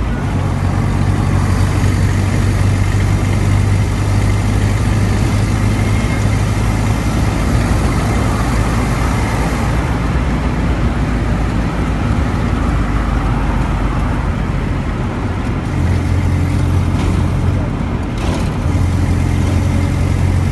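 A car driving on a paved road: steady engine hum and tyre noise, with the low hum growing stronger in the last few seconds.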